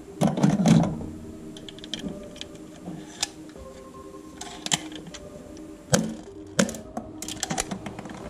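Plastic toy guns clattering and clicking against each other as they are handled and shifted about in a cardboard box, with a burst of rattling in the first second and sharp knocks about six seconds in.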